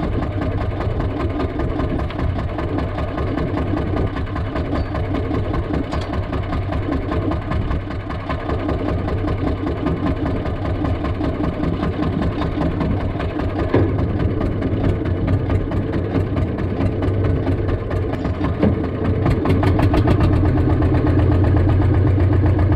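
Small fishing boat's engine idling steadily, a little louder near the end.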